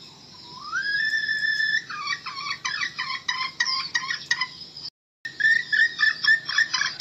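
Red junglefowl hen calling: a drawn-out note that rises and holds, then a rapid run of short clucking notes. The sound cuts out briefly about five seconds in, and the clucking resumes.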